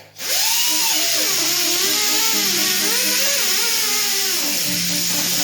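High-speed rotary grinder spinning a soft abrasive disc against a tire's bead area to scrub off caked rust and dirt. It gives a steady hissing whine whose pitch wavers as the disc is pressed and eased. It cuts out for a moment at the very start, then spins up again.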